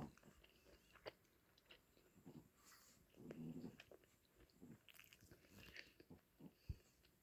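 Faint chewing of a fish-cake bar (hotbar): soft wet smacks and clicks, with a short pitched hum or whimper about three seconds in.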